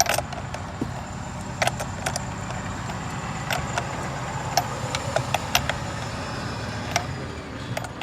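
Scattered metallic clicks and clinks of hand tools working the steering-wheel retaining bolt as it is tightened, over a steady low hum.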